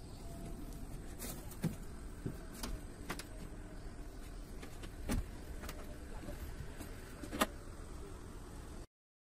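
Handling noise of a handheld phone recording: a steady low rumble with scattered sharp clicks and knocks, about seven in all, the loudest near the end. The sound then cuts off abruptly.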